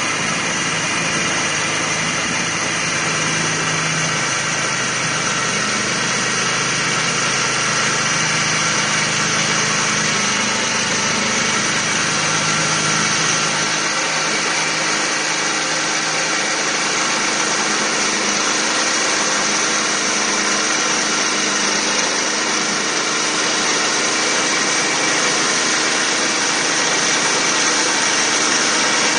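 TA Schmid sawmill running and cutting a log: a steady mechanical drone with a high whine over it. The deepest rumble drops away about halfway through.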